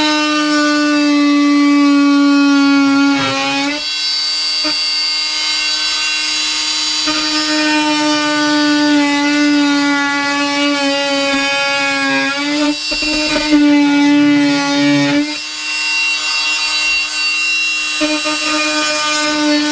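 Oscillating multi-tool running and cutting with a steady buzzing whine. It stops briefly three times, its pitch sagging just before each stop.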